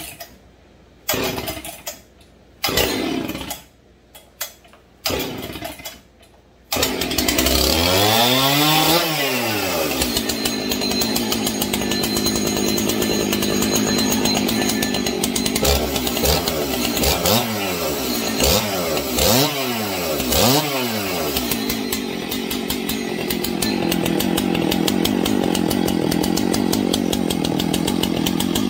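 Husqvarna 272XP two-stroke chainsaw, which has no decompression valve, pull-started with its rebuilt recoil starter: several quick rope pulls, then it catches about seven seconds in and keeps running. It revs up and back down once, is revved a few more times, then settles to a steady idle.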